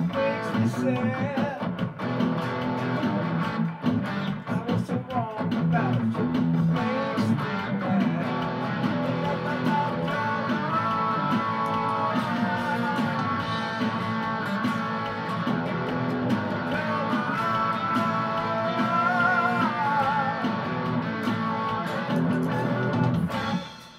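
Electric guitar music: a melodic line with bent notes over a steady lower accompaniment, stopping abruptly just before the end.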